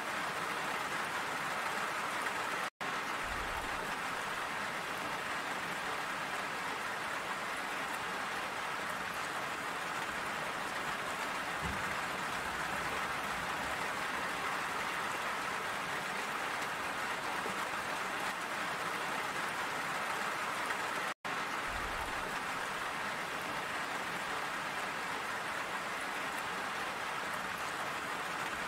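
Steady rain falling, an even hiss of drops. It cuts out completely for an instant twice, about three seconds in and again about twenty-one seconds in.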